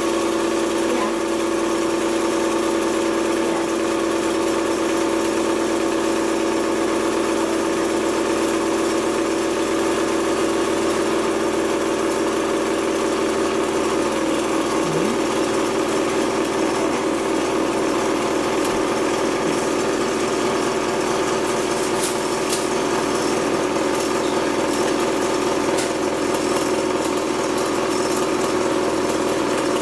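Small electric candyfloss machine running, its motor spinning the heated sugar head with a steady hum as it spins out candyfloss. The hum turns wavering about halfway through.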